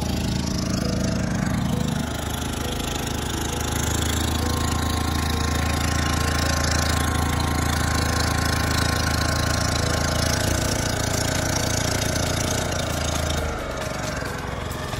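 A motorboat's engine runs with a steady low hum, mixed with the wash of water and wind. It eases off slightly near the end.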